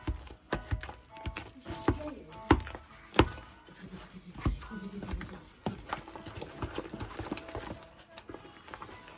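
Wire potato masher pressing down into mashed potato and knocking against the bottom and sides of an aluminium pot, a run of uneven knocks about one or two a second. Background music plays underneath.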